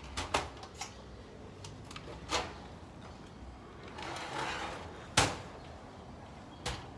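Scattered sharp clicks and knocks of a phone being handled, the loudest about five seconds in, with a soft breathy hiss shortly before it as a person takes a drag on a joint.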